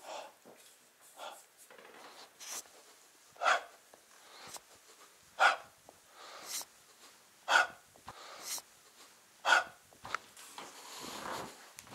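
A man breathing hard in a steady rhythm, with a sharp forceful exhale about every two seconds and a quieter inhale between them, the breathing of physical exertion. A soft rustle follows near the end.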